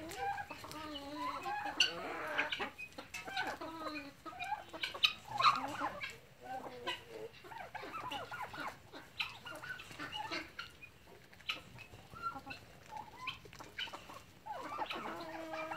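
A flock of chickens clucking and calling continually while feeding, in many short overlapping calls.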